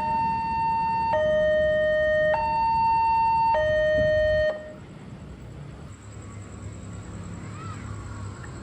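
Railway level-crossing barrier warning siren: a two-tone alarm alternating between a higher and a lower tone, each held a little over a second. It cuts off suddenly about four and a half seconds in, leaving low background noise.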